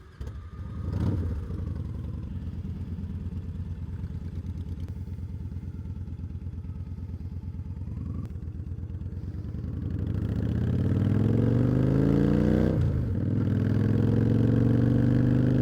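V-twin cruiser motorcycle engine starting up with a quick blip of the throttle, then idling with an even, loping pulse. About ten seconds in it revs up as the bike pulls away. The pitch drops briefly at a gear change and climbs again as it accelerates.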